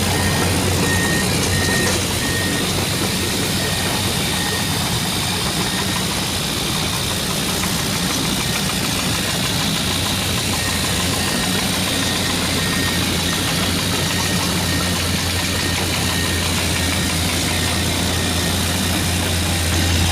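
Radio-controlled toy excavator running: a steady engine-like hum, with a faint high beeping pulsing on and off in the first few seconds and again about halfway through.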